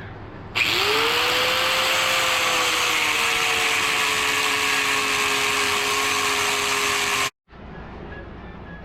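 Electric angle grinder switched on and running hard, its motor whine rising as it spins up and then sagging slightly as it works under load, with a dense high hiss. It stops abruptly about seven seconds in.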